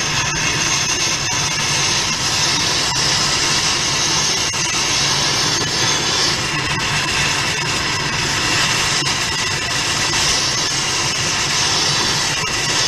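Gas torch flame blowing steadily onto a crucible to melt brass, a constant hiss.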